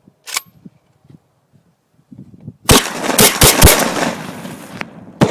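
A semi-automatic gun fired rapidly: a quick string of about five loud shots starting a little past halfway, each echoing, then one more shot near the end. A single sharp click comes about a third of a second in.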